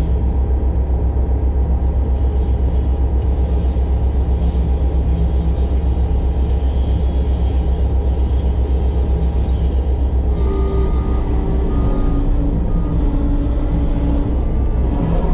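Case TV450 compact track loader running, its diesel engine a steady, evenly pulsing low rumble. About ten seconds in, a few higher steady whines come and go over it.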